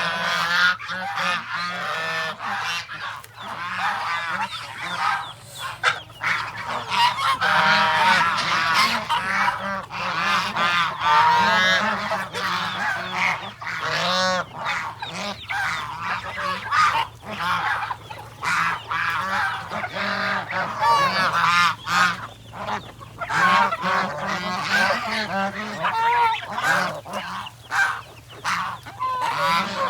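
A flock of domestic geese honking continuously, many calls overlapping one another.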